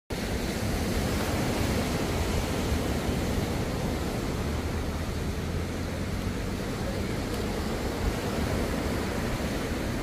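Small waves breaking and washing up a sandy beach, a steady surf wash with a low rumble underneath.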